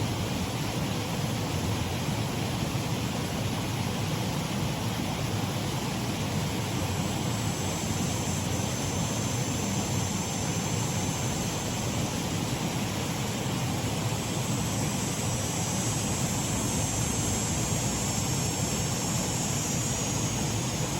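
Shallow stream waterfall, water running and splashing steadily.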